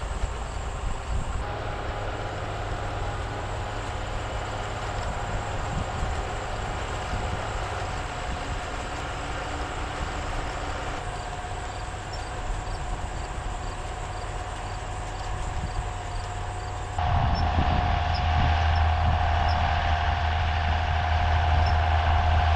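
Farm tractors and a forage chopper running steadily during corn silage chopping: a low engine drone under a steady whine. The sound changes abruptly a few times and is louder near the end.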